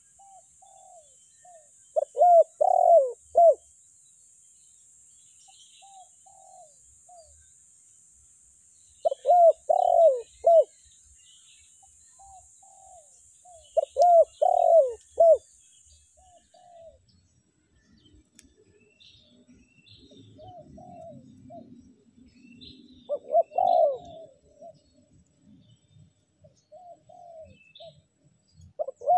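Spotted dove (tekukur) cooing: phrases of several short coos repeated every few seconds, the loudest three near the start, the middle and just before the end.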